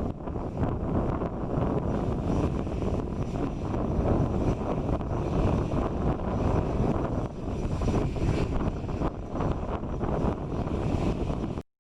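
Jet engines of an Airbus A320 airliner at takeoff power as it departs, a steady, loud rushing noise heard from the ground. It cuts off suddenly near the end.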